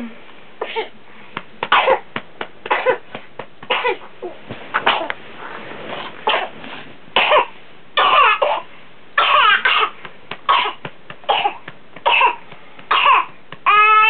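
A long fit of repeated harsh coughs, about one every half second to second, with a brief high-pitched voiced sound near the end. It is a coughing episode suspected of being whooping cough.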